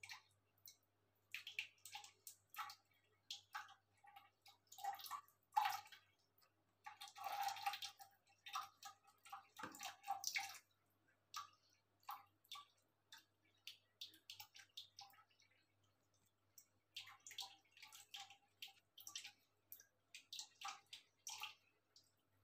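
Cats lapping water from a plastic bucket: quick, irregular wet laps and small splashes, with a longer splashing swish about seven seconds in.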